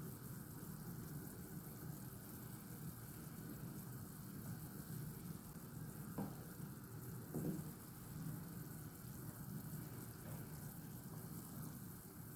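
Faint, steady sizzling of onion, garlic and whole spices cooking in olive oil in a pot on the heat, with two soft taps about six and seven and a half seconds in.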